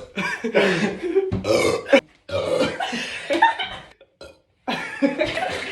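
A person belching loudly: several drawn-out burps in quick succession, with a short pause about four seconds in.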